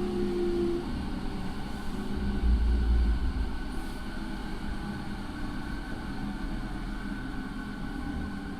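Running sound inside a JR 209 series electric motor car with a Mitsubishi IGBT inverter and MT68 traction motors: steady inverter and motor tones over wheel and track rumble. A heavier low rumble comes about two and a half seconds in and lasts under a second.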